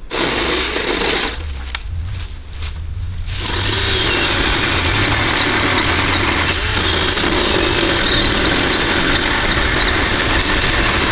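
Kobalt 40-volt cordless electric chainsaw cutting through a felled tree's log, the motor and chain running as it bucks the wood. The sound is broken up with short pauses for the first few seconds, then settles into one continuous cut.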